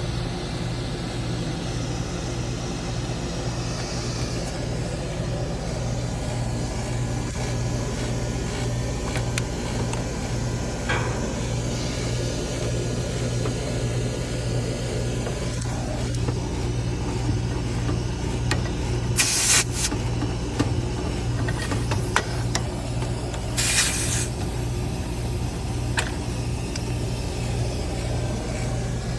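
A Lennox two-ton air conditioner's condensing unit running with a steady low hum, short of refrigerant because its corroded condenser coil is leaking Puron (R-410A). Two short bursts of hiss come about 19 and 24 seconds in.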